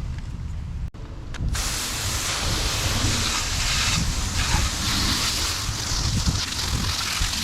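Running water rinsing sanding dust off a car dashboard: a steady hiss that starts about a second and a half in, over a low rumble.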